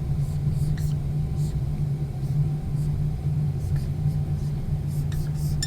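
A steady low hum with a rumble beneath it, and a few faint short ticks.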